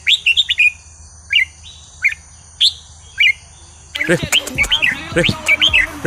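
Red-whiskered bulbul singing: short, clear chirping notes that slide up and down, spaced out at first. About four seconds in they give way abruptly to a faster, busier run of calls.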